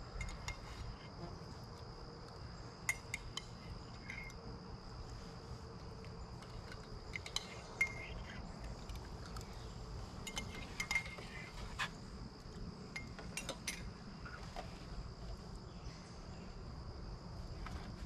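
Steady high-pitched insect chorus, with scattered sharp clinks of spoons against bowls and cups.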